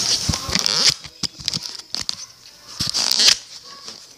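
Close rustling and crackling with scattered sharp clicks, like fur or bedding rubbing against the microphone. It is loud for the first second, drops away, then swells briefly again about three seconds in.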